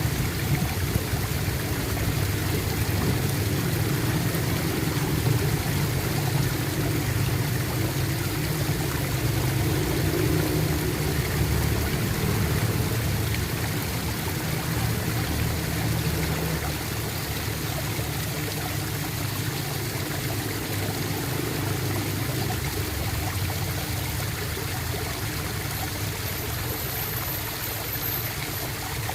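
Running water gurgling and trickling steadily, with a low rushing undertone; it eases slightly about halfway through.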